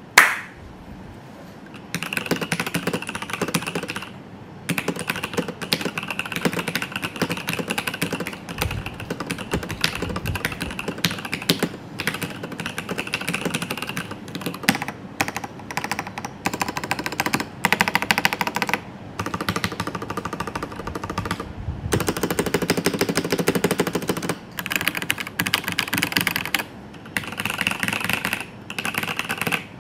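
Pulsar Xboard MS tenkeyless mechanical keyboard being typed on fast, a continuous clatter of keystrokes. It starts about two seconds in and has a few brief pauses.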